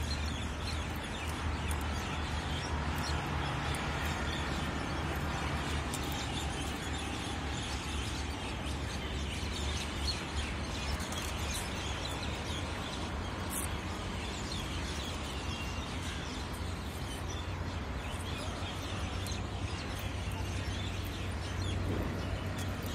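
Steady outdoor background noise with a low hum, and faint bird chirps here and there.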